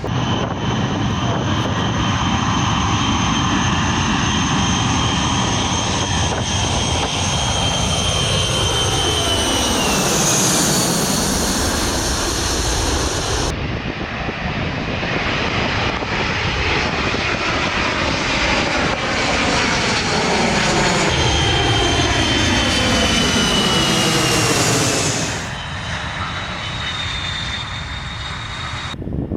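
Jet airplane engines passing close by, loud, with a high whine that falls in pitch as the aircraft goes past, twice. The sound changes abruptly twice, about halfway through and near the end.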